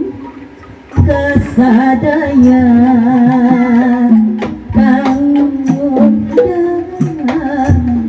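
Sundanese calung music: a woman singing a held, wavering melody over struck bamboo calung tubes and a hand-played kendang drum. The music dips quieter for about the first second, then comes back in at full level.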